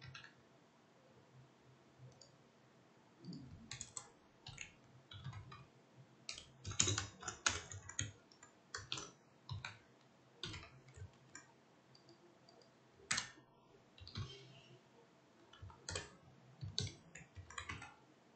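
Computer keyboard typing and mouse clicks: irregular sharp taps coming in short quick runs with pauses between.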